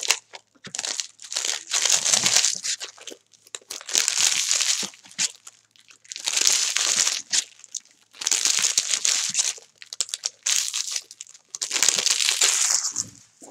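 Foil wrappers of Bowman's Best baseball card packs crinkling and tearing as they are opened by hand and peeled off the cards, in about five bursts a couple of seconds apart.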